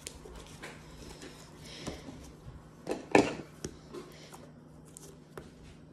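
Soft squishing and small clicks as a ball of slime mixed with kinetic sand is worked by hand, then one louder thump a little after three seconds in as it is put down on a wooden table.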